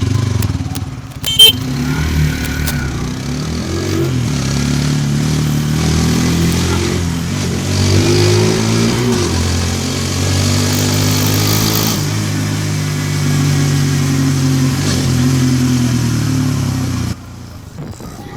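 Hero Xtreme 160R 4V Pro's single-cylinder engine running under way, its pitch rising and falling as the rider accelerates, eases off and shifts. A sharp knock comes about a second and a half in, and the sound drops off suddenly about a second before the end.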